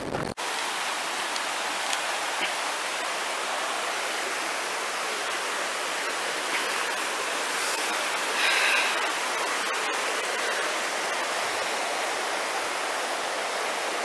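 Fast river rushing over rocks, a steady, even roar of white water, running high after heavy rain.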